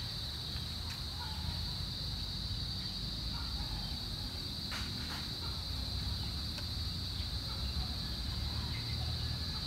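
Steady, high-pitched chorus of insects trilling without a break, over a low outdoor rumble, with one faint tap about five seconds in.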